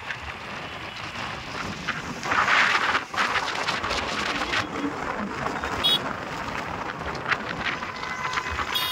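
Wind on the microphone and the rush of a flooded river, with road traffic passing. A vehicle horn sounds briefly near the end.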